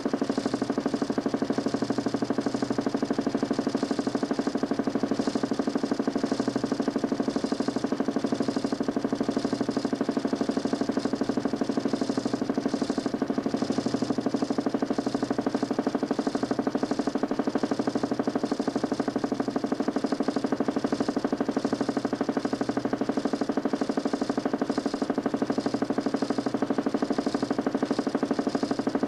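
DC motor spinning a homemade 40 cm plywood Nipkow disc in a mechanical television, running steadily with a fast, even flutter.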